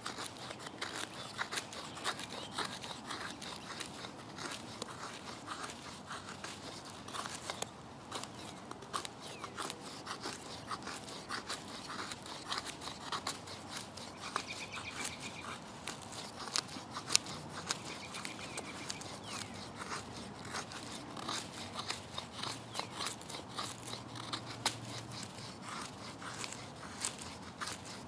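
Leatherman Wave multi-tool blade shaving thin curls off a dry wooden stick to make a feather stick: a steady run of short scraping strokes, each ending in a small click against the wood.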